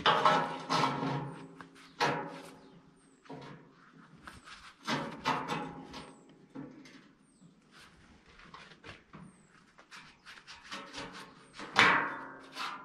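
Metal striking a welded steel tube frame, several separate clangs that each ring and die away. The loudest come at the very start and again near the end.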